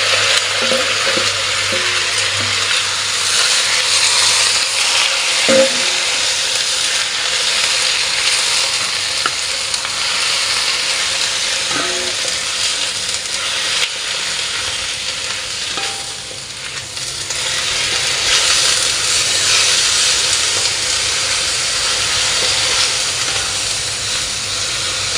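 Choy sum being stir-fried with sausage and garlic in hot oil: steady sizzling with stirring in the pan. The sizzle eases briefly about two-thirds of the way through.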